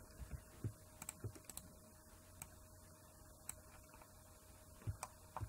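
Faint, irregular clicks of a computer keyboard as shortcut keys are pressed, over quiet room tone.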